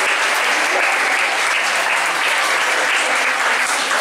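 Large audience of students applauding steadily.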